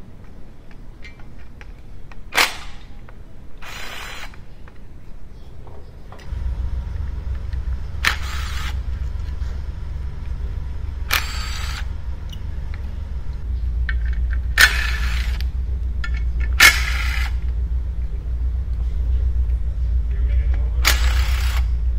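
Cordless impact wrench zipping bolts out of a 3.0L supercharged engine during teardown, in several short bursts a few seconds apart. A steady low rumble starts about six seconds in and runs underneath.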